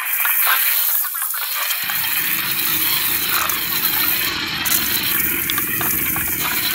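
Dense crackling, sizzling noise, with a low rumble joining in about two seconds in.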